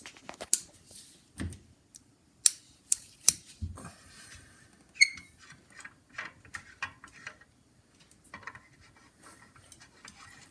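Scattered sharp clicks, taps and a few dull knocks from hands handling a lamp, its plug and cord, as the lamp is replugged and adjusted to get it working.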